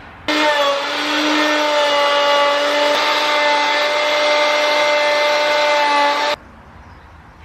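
Ryobi plunge router running at full speed while its bit cuts into a scrap pine board, a steady high whine over the rasp of the wood being cut. It starts suddenly just after the beginning and cuts off suddenly about six seconds in.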